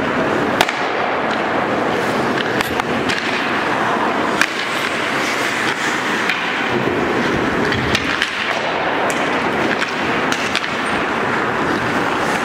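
Ice hockey skate blades scraping and carving on the ice, with sharp clacks from sticks and puck now and then.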